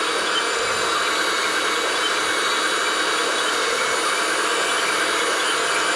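Electric motors of a Huina 1580 RC excavator whirring steadily as it runs.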